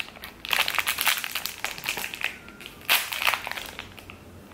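Glossy plastic snack wrapper of an individually wrapped apple jam cookie crinkling in several short bursts as it is handled and pulled open by hand.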